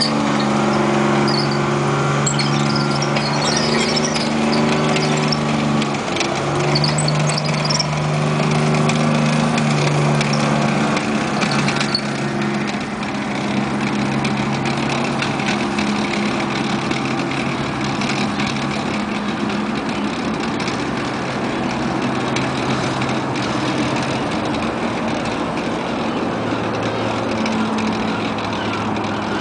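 FV432 armoured personnel carrier's engine running under way, its note stepping up and down as the revs change. Scattered high-pitched squeaks come through in the first dozen seconds.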